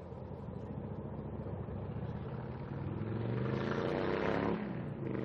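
A motor vehicle passing on the road, its engine rising in pitch as it accelerates and nears, then dropping away sharply about four and a half seconds in, with another vehicle coming up just after.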